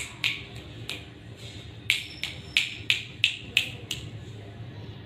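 A person making sharp clicking sounds to get a cat's attention. There are a few scattered clicks at first, then a quick run of about seven, roughly three a second, stopping about four seconds in.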